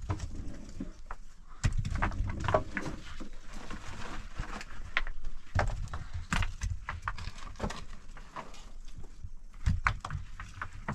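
Loose wall stones knocking and clattering as they are handled: irregular sharp clicks and knocks, with a few dull thumps, the heaviest about two seconds in and near the end.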